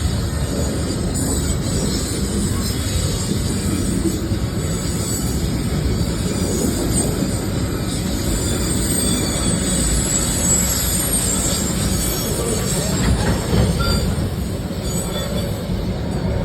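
Container freight train rolling past with a steady low rumble, its wagon wheels giving a thin, high squeal throughout.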